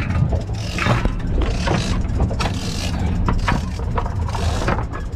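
Boat engine running steadily, with patches of hiss from wind or water and occasional sharp knocks.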